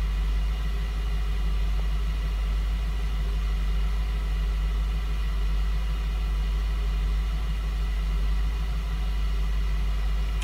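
2004 Lincoln Navigator's 5.4-litre V8 idling, a steady low drone. The engine has a slight cylinder misfire.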